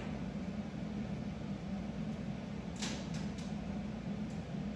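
Steady low hum of room noise, with a brief faint scrape about three seconds in and a light tick near the end.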